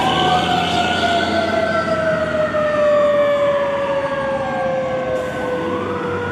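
Fire engine siren wailing as the engine drives away: one long, slowly falling wail, with a second, higher tone that rises over the first second or two and then falls.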